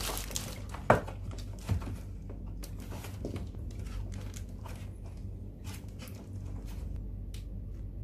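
Hands handling the plastic housing of a split-type air-conditioner indoor unit while the drain hose is fitted back: a short rustle, then a sharp knock about a second in and a softer one soon after, followed by scattered light clicks and rubs over a steady low hum.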